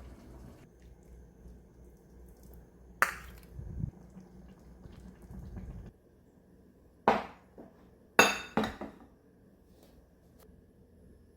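Dishes and cutlery handled in a kitchen: about five sharp clinks and knocks, spaced irregularly, over a low steady background noise that stops about halfway through.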